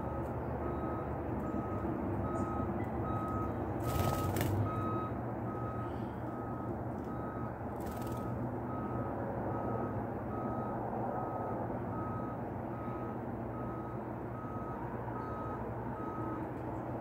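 A vehicle's reversing alarm beeping evenly, a little more than once a second, over a steady low engine rumble. The beeping stops shortly before the end. Two short knocks sound about four and eight seconds in.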